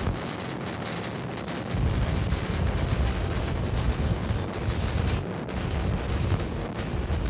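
Starship SN8's three Raptor engines thundering in a deep, noisy rumble during ascent; the lowest part of the rumble briefly falls away near the start.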